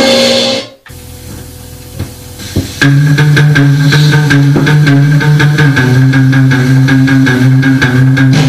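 Played-back rock'n'roll records: one track cuts out less than a second in, followed by about two seconds of low hiss with a couple of faint clicks. The next track then starts loud, led by guitar over a steady bass line.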